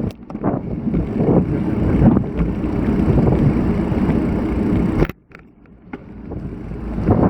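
Strong gusty wind buffeting the microphone of a Shimano CM-2000 action camera during typhoon winds. It drops away suddenly for about a second a little past the middle, then builds back up.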